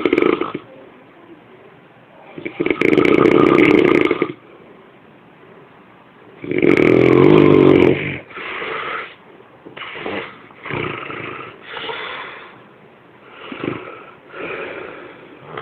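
A person snoring loudly: two long, loud snores start about two and a half and six and a half seconds in, followed by a run of shorter, quieter snores.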